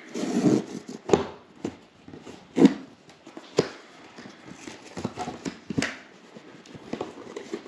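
Cardboard product box being handled and opened: rustling with a scattered series of sharp taps and knocks, the loudest about two and a half seconds in.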